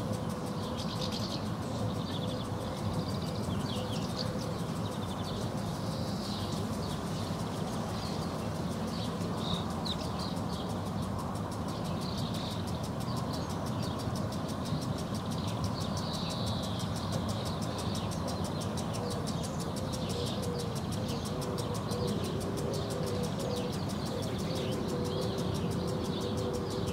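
Small birds, swallows and house martins, twittering in short chirps throughout, over a steady distant traffic hum. A faint steady drone sits underneath for much of the time.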